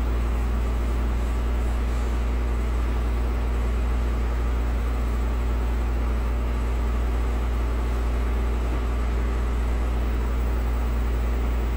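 A steady low hum with a hiss over it, unchanging throughout, from an unseen machine, appliance or the recording itself; no separate knocks or thuds stand out.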